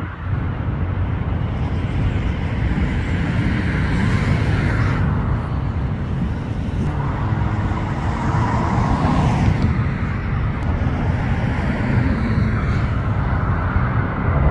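Road traffic noise: a steady rumble with cars swelling past every few seconds. Near the end, the noise of an approaching Airbus A350 airliner on final approach starts to build.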